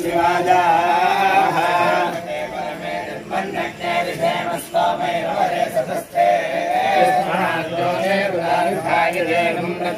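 A group of male voices chanting Vedic mantras together in unison, with brief pauses for breath.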